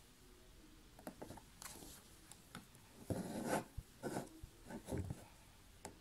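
Embroidery needle and thread being drawn through fabric stretched taut in a hoop: a series of faint, short scratchy rasps and small clicks, the longest about three seconds in.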